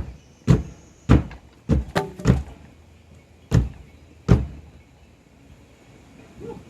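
About eight sharp knocks and thuds at an irregular pace over four and a half seconds, from work on the camper's floor, then little more.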